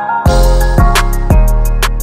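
Background music. A steady drum beat with bass comes in just after the start, over sustained pitched notes.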